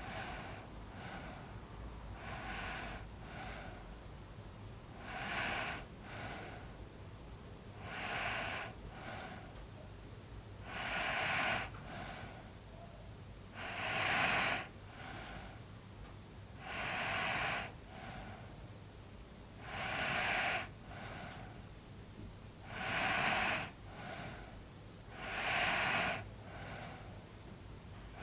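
A sleeping person snoring lightly with heavy, airy breaths, a loud one about every three seconds, each followed by a fainter one. The breaths grow louder over the first dozen seconds, then hold steady.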